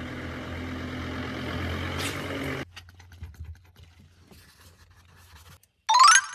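A vehicle engine idling with a steady hum that cuts off abruptly about two and a half seconds in, leaving a faint low hum and light clicks. Near the end comes a brief, loud tone sweeping upward, the loudest sound here.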